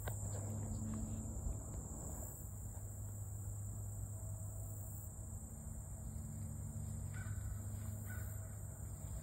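Open-field ambience: a steady high insect drone over a low rumble, with two short harsh bird calls about seven and eight seconds in.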